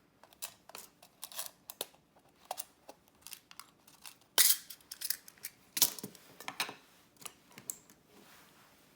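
Small items and their packaging being handled: an irregular run of sharp clicks and short crinkly rustles, loudest about four and a half seconds in and again near six seconds.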